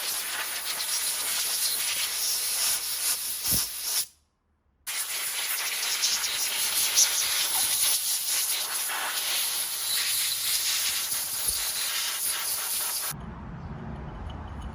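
Water spraying hard from a hose nozzle onto brake calipers being washed, a steady hiss. It breaks off for under a second about four seconds in, resumes, and stops shortly before the end.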